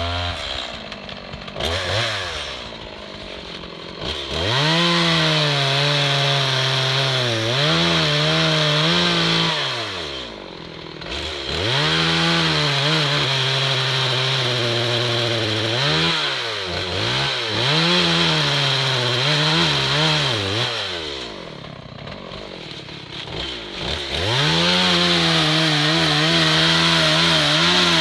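Two-stroke chainsaw cutting through a hickory trunk to fell it, making the face cut and back cut. It revs up to full throttle in long stretches with brief dips, and drops back to idle twice.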